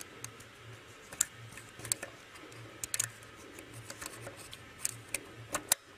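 Light metallic clicks and taps from a bobbin case being fitted into the shuttle of a Singer 191D-30C industrial sewing machine, irregular, about eight over a few seconds, several of them close together near the end, over a faint low hum.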